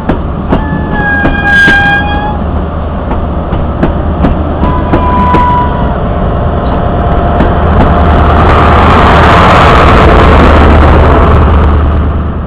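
First Great Western train's coaches rolling past alongside the platform, wheels clicking irregularly over the rail joints under a steady rumble, with two brief high tones in the first half. The noise builds to its loudest about two-thirds of the way through, then starts to fade near the end.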